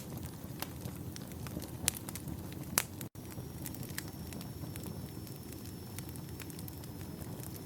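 Wood campfire burning: a steady low rush of flame with frequent sharp crackles and snaps of the burning logs, two louder pops about two and three seconds in. A faint thin high whistle sets in around three seconds in.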